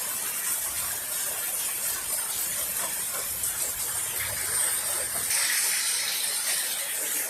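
Heavy rain falling, a steady even hiss with no thunder.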